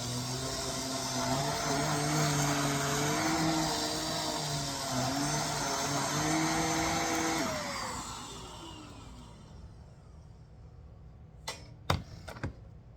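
JIGOO handheld mattress and couch vacuum running, its motor hum wavering in pitch, then switched off about seven seconds in and winding down with a falling whine. Three sharp clicks come near the end.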